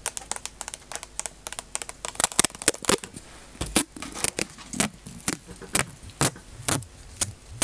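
Sharp clicks and taps of a clear plastic strip and long acrylic nails being handled right at the microphone, scattered at first and then louder, at about two a second.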